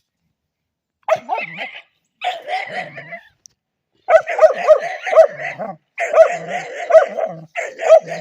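A dog barking in quick runs of several barks a second, starting about a second in and coming thickest in the second half.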